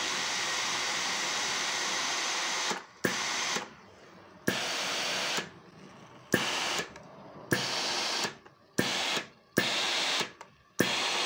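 Vestel steam-generator iron releasing steam with a hiss, first one long burst of about three seconds, then about seven shorter bursts of roughly a second each, each starting with a click. The repaired steam feed is working again.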